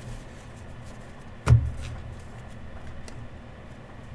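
A single sharp thump about a second and a half in, with a few faint clicks from trading cards being handled on a table.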